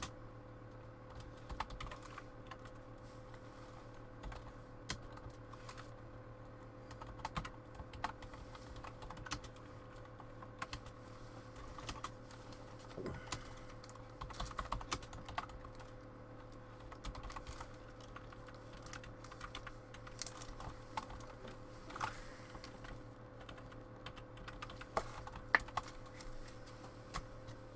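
Faint, irregular light clicks and taps, like keys or cards on a desk, over a steady low electrical hum.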